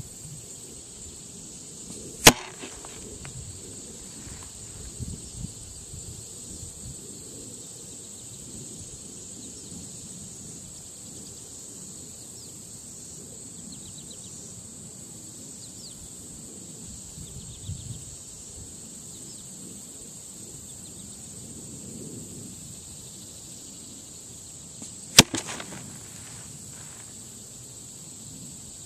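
Two arrows striking a foam block archery target, one sharp thwack about two seconds in and another near the end.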